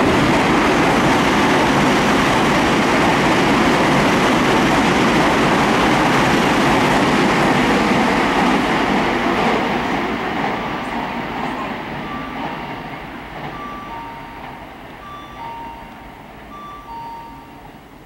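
Train running on rails, loud for about the first ten seconds and then fading away steadily. Short high tones repeat several times at two pitches toward the end.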